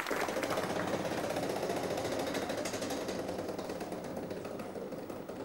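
Game-show prize wheel spinning, its pegs clicking rapidly against the pointer, the clicking getting gradually quieter.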